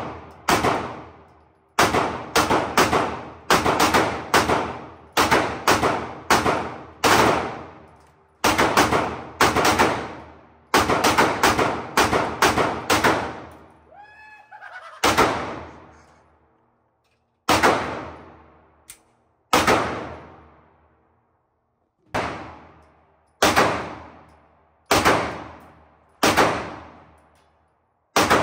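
Handgun and rifle gunshots at an indoor shooting range, about three dozen in all, each with a long echoing decay. The first half comes in quick strings of two or three shots a second; after that the shots are single and more widely spaced.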